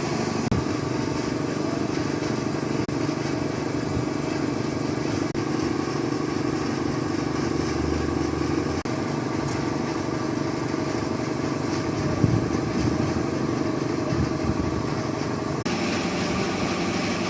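Toyota Fortuner engine running steadily, an engine whose crankshaft bearings are due to be replaced. The sound cuts off suddenly at the end.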